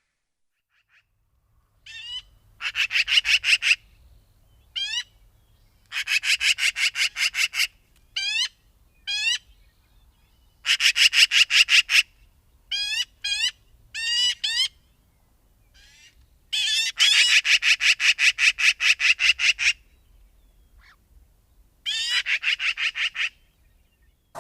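Magpie chattering: harsh rattling bursts of rapid notes, about ten a second, each burst lasting one to three seconds, with single short rising calls in between.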